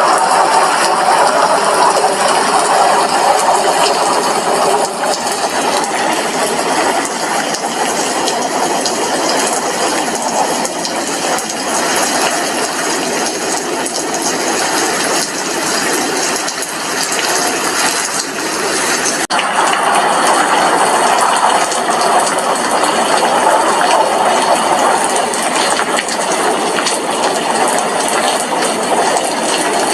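Steady heavy rain beating on a glass window, a dense pattering of countless drops.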